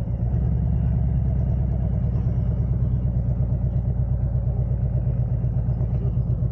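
Harley-Davidson Road Glide's V-twin engine running, a low rumble that pulses evenly.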